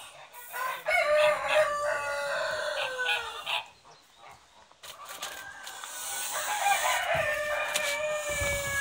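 A rooster crowing twice, each crow a long call of two or three seconds that falls away at its end.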